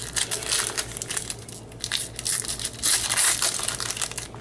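Foil wrapper of a Bowman baseball card pack crinkling and tearing as it is pulled open, a pack that is hard to open; the crackling is loudest about three seconds in.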